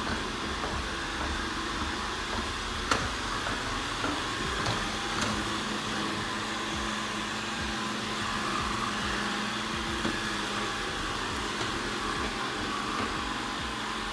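Ecovacs Deebot N79W robot vacuum running steadily with a continuous whir, with a few sharp clicks, the loudest about three seconds in.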